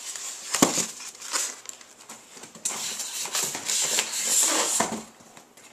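Cardboard boxes and foam packing rustling and scraping as they are handled, with a single knock about half a second in.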